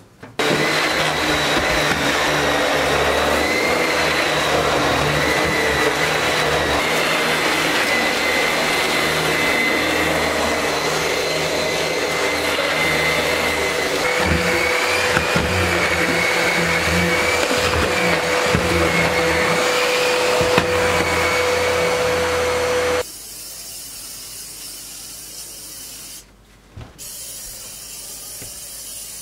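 A small fan-driven electric motor running steadily with a high whine, loud and even, then switched off suddenly about 23 seconds in, leaving a fainter steady hiss.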